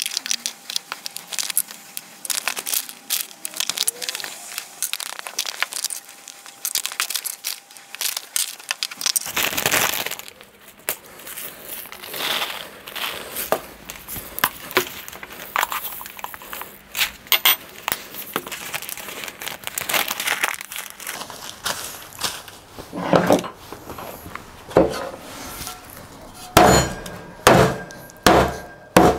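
Plastic bag crinkling and rustling as whole coriander and mustard seeds are poured from jars and handled, with small clicks and rattles. Near the end come several heavy thuds, about one every half second, as a cast-iron pan is brought down on the bagged seeds on a wooden board to crack them.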